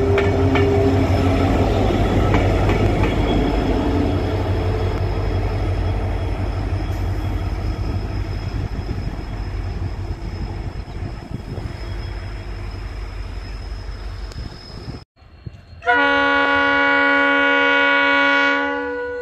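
Indian Railways diesel train running past with a heavy, deep rumble that slowly fades as it goes away. After an abrupt cut, a loud multi-tone train horn sounds one long blast of about two and a half seconds.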